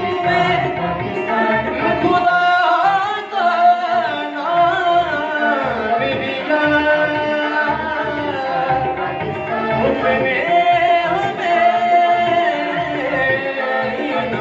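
Group of voices singing a Pakistani patriotic song (milli naghma) with harmonium accompaniment over a steady drum beat.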